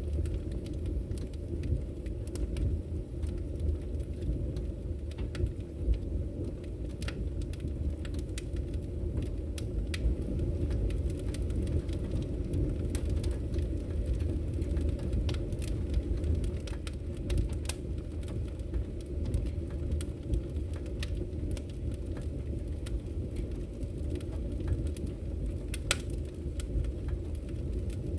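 Wood fire burning in a fireplace: a steady low rumble of flames with scattered sharp crackles and pops, one louder pop near the end.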